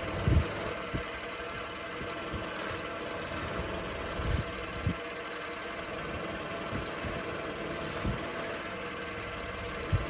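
Wood lathe motor running steadily, spinning a crochet hook during polishing, with a few short low thumps about half a second in, around the middle and near the end.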